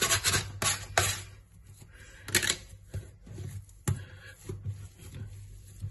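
Wet hands rounding a ball of einkorn bread dough on a worktop: soft handling and rubbing, broken by a few sharp clicks and taps.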